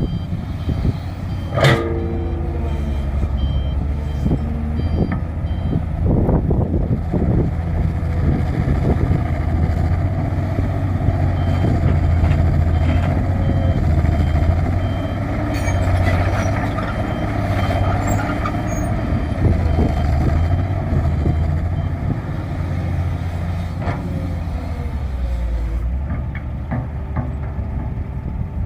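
Diesel engines of excavators and a dump truck running steadily while digging and loading soil. A reversing alarm beeps in regular pulses for the first several seconds and again briefly midway. There are a few sharp metal clanks, the loudest about two seconds in.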